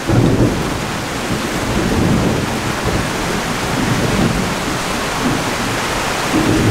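Steady, loud rushing noise like heavy rain, with low rumbling swells every couple of seconds.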